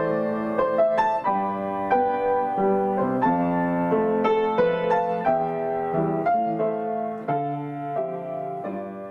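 Grand piano playing a gentle instrumental passage of chords and melody notes, with no singing; it grows quieter toward the end.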